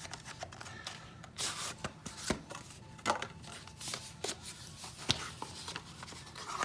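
A small product box being opened and its packaging handled by hand: scattered sharp clicks and taps with short bursts of rustling.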